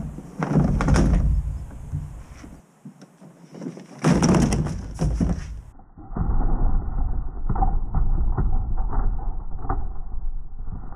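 Plastic jon boat hull thumping and scraping as it is pushed about on its trailer, in two bursts of knocks and scraping. About halfway through these give way to a muffled rumble with scattered knocks.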